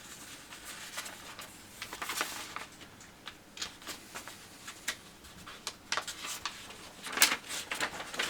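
Rustling and light clicks from the model kit's packaging and paper inserts being handled, with a louder flurry of rustling near the end.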